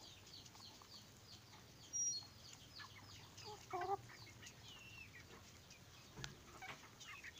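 Free-range village chickens (ayam kampung) clucking softly and making many short, quick chirps as they peck feed from a hand, with one louder cluck about four seconds in.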